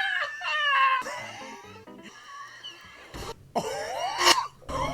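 A man's high-pitched wheezing laugh: squeaky, gliding gasps in the first second, then sharp rasping, cough-like gasps near the end.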